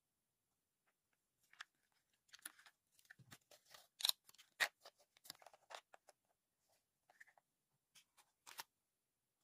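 Foil seal being peeled off a plastic Nutella & Go! snack pot: a run of crinkling crackles and clicks, loudest about four seconds in, ending with a few sharp clicks near the end.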